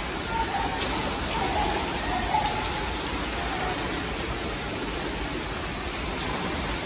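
Steady rushing ambience of an indoor swimming-pool hall, an even wash of water and air noise, with faint distant voices now and then.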